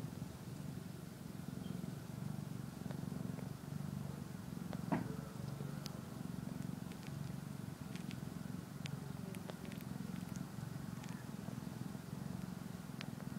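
Kitten purring in a steady low rumble that swells and dips with each breath. A few faint clicks, and a brief sharper sound about five seconds in, the loudest moment.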